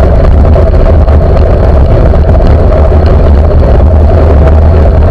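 Steady, loud wind rumble on a bicycle's handlebar camera microphone while riding, with road traffic running underneath.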